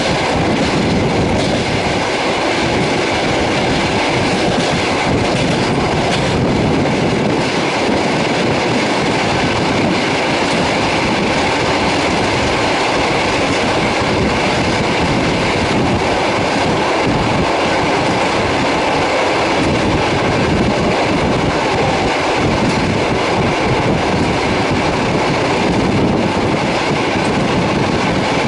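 Passenger train running, heard from on board: a steady, loud rumble and rattle of the wheels on the rails.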